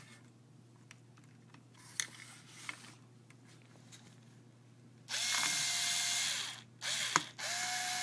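Small electric power drill/driver motor running in short bursts: one run of about a second and a half about five seconds in, a brief blip, then another run of about a second, each spinning up and winding down at a steady pitch. A few light clicks from handling come before it.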